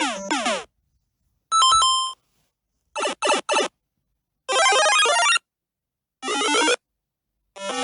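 A run of short electronic sound-effect jingles and chimes, one after another with brief silences between: a chime, then three quick beeps, then two short jingles, with music starting near the end.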